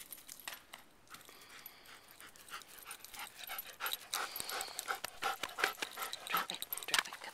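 A dog panting close to the microphone in quick, even breaths, about three a second, louder from about a third of the way in.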